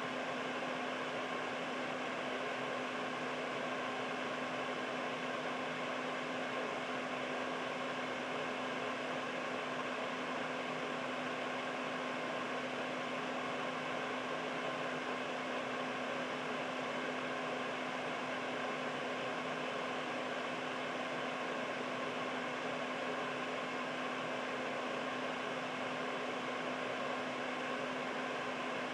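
Air purifier fan running steadily: an even, unchanging whoosh of air with a faint steady hum underneath.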